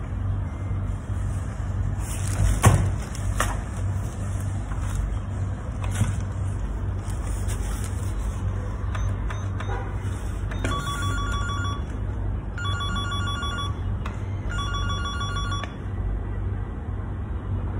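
Electronic ringing: three short trilling rings, each about a second long, in the second half, over a steady low hum. A single sharp thump comes about three seconds in.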